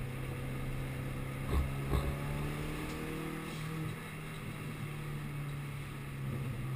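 Subaru Impreza WRX STI's turbocharged flat-four engine heard from inside the cabin, running steadily at track speed with its note shifting slightly, and two short thumps about one and a half and two seconds in.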